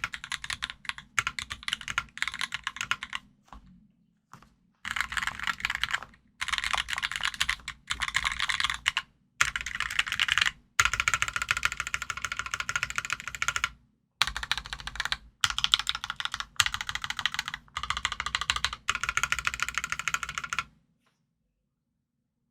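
Mechanical keyboard typing: an NK65 aluminum-case board with lubed Durock Smokey linear switches and PBT keycaps, keys clacking in fast runs broken by short pauses, stopping shortly before the end.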